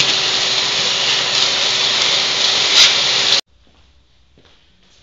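Shop vac running, its nozzle sucking dirt and debris out of a gas grill's firebox: loud rushing air over a steady motor whine, cut off abruptly about three and a half seconds in.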